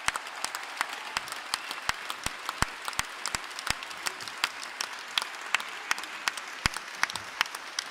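A large arena audience applauding, with one person's loud claps close by at a steady pace of about three a second over the general applause.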